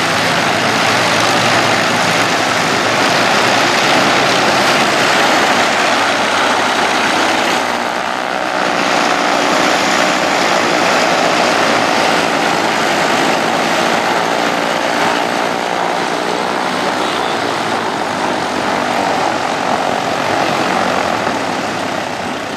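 A group of light single-engine propeller airplanes running their piston engines together, a loud steady drone of engines and propellers.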